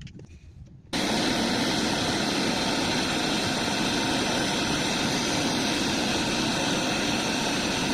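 A loud, steady rush of pressurised gas, starting abruptly about a second in and holding level throughout, as during work on an air-conditioner compressor's refrigerant lines.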